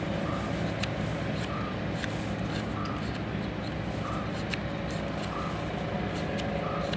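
Knife blade clicking and scraping against a raw green mango as its skin is shaved off in short strokes, over a steady low hum. A short high chirp repeats about every second and a quarter.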